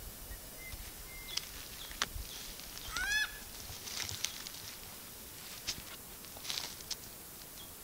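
Currawongs giving short, sharp scolding calls while mobbing a snake, with a louder call rising in pitch about three seconds in.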